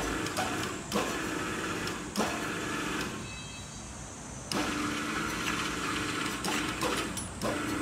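Electric hoist motor of a block clamp machine running, driving its belt and reducer to wind the steel wire rope and lift the clamp arm. It runs for about three seconds, stops, then starts again suddenly about halfway through, with a few sharp clicks along the way.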